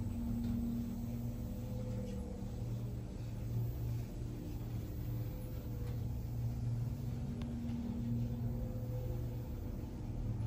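2011 Orona passenger lift travelling between floors: a steady low hum and rumble inside the car, with a few low tones holding level throughout.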